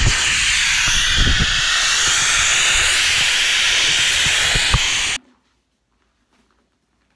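Air hissing out of an inflatable stand-up paddle board's valve as the pin is pushed down to deflate it. The hiss is loud and steady and cuts off suddenly about five seconds in.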